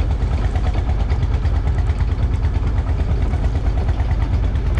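A fishing boat's engine running steadily with a fast, even low throb.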